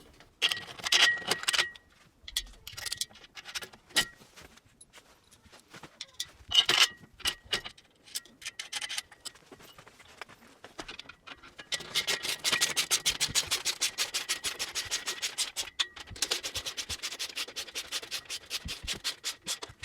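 Metal bolts and rack parts clinking and rattling as they are handled, then a ratchet wrench clicking fast and evenly as bolts are tightened, pausing briefly once.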